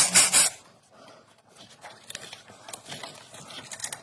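A power tool runs briefly and stops about half a second in, followed by scattered light clicks and knocks of tools and parts being handled.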